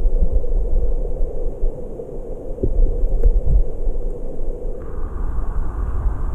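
Stream water rushing and rumbling, heard muffled through a camera held underwater, with a few soft low knocks.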